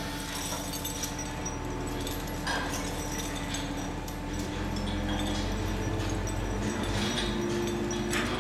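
Heavy vehicle engine running steadily, its low hum getting louder about four seconds in, with a couple of light knocks.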